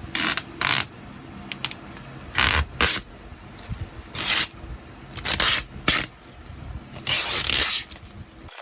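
A series of irregular short scrapes and rustles, typical of hands handling and plugging in front-panel cables in a PC case.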